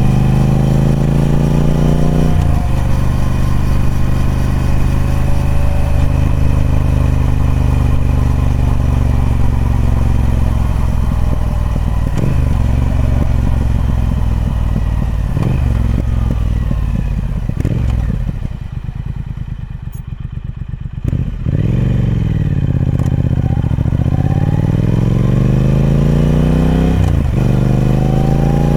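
Triumph Speed Twin 1200's parallel-twin engine through its stock exhaust, accelerating with rising pitch and shifting up a gear early on, then running down in pitch as it slows. Around two-thirds through it goes quieter off the throttle, then gets a sharp throttle blip and pulls up through the revs again, with another upshift near the end.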